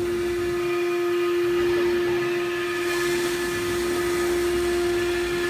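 CNC router spindle running with a steady high whine while cutting aluminium composite panel, over a hiss that grows brighter about three seconds in.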